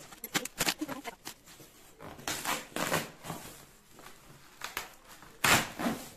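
Corrugated cardboard being torn open and plastic wrapping crinkling under hands: a run of crackles and scrapes, then rustles, with the loudest rustle near the end.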